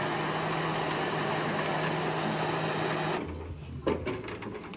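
Steady hum of an idling motor vehicle over a noisy background, cutting off suddenly about three seconds in. After that, a couple of footsteps knock on the wooden planks of a footbridge.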